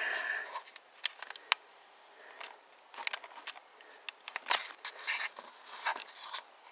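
Handling noise from a camera being picked up and repositioned: a short rustle at the start, then scattered clicks, small knocks and soft rustling. The bandsaw is not running.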